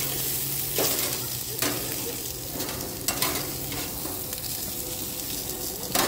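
Acorn squash and onion sizzling in a stainless-steel grill basket on a grill while metal tongs toss them, with four sharp scrapes and clicks of the tongs against the basket.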